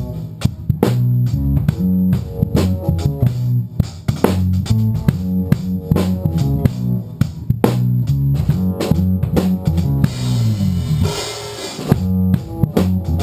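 A band rehearsing together: an electric bass plays a funky line over a drum kit's steady beat, with keyboard. A cymbal washes out about ten seconds in.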